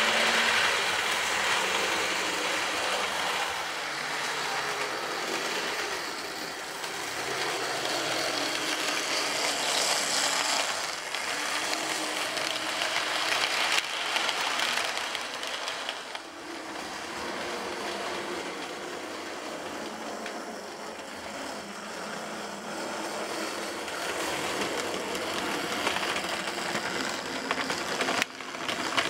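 Lima H0-scale model of a DB class E 151 electric locomotive running on the layout with its coaches: a steady mechanical whirring rattle of motor, gears and wheels on the track.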